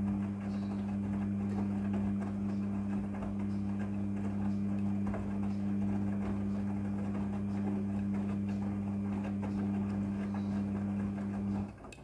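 Midea front-loading washing machine tumbling a load of clothes: a steady motor hum over the rustle of the turning laundry. Both stop suddenly near the end as the drum comes to rest.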